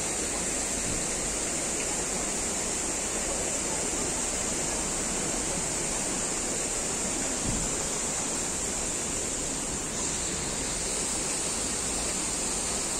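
Fountain water splashing in a steady, even rush.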